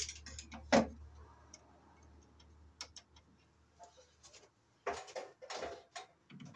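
Wire cutters snipping the stripped end off a 12-gauge black conductor at a breaker terminal: one sharp click about a second in, followed by small ticks of the tool. Near the end, short scrapes of a screwdriver on the breaker's terminal screw.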